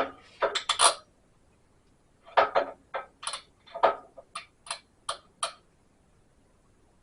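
Metal tools and axle parts clinking and knocking: about a dozen short, sharp knocks, a few in the first second, then a quicker run of them from about two and a half to five and a half seconds in.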